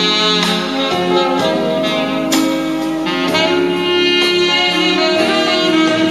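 Instrumental jazz with a saxophone lead, played back from a cassette on a Pioneer CT-F500 stereo cassette deck.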